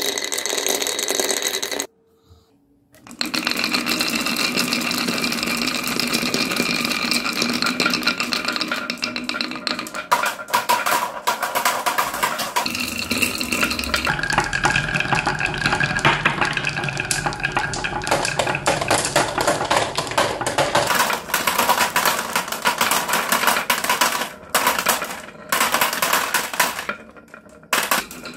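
Glass marbles rolling and clattering down a wooden marble run and into plastic toy trucks: a dense rattle of rapid clicks over a rolling hum. It cuts out briefly about two seconds in and twice near the end.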